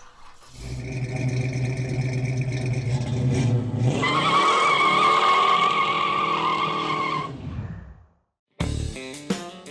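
A car engine runs low and steady, then revs up about four seconds in with a high, sustained squeal like tyres skidding. The squeal holds for about three seconds before the sound dies away. Music starts near the end.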